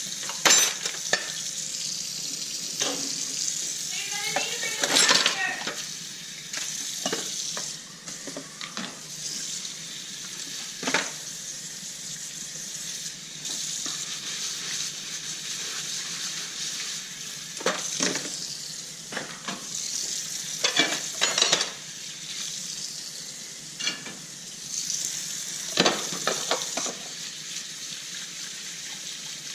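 Dishes being washed by hand in a sink: a steady hiss of running tap water, with frequent clinks and knocks of dishes and cutlery against each other.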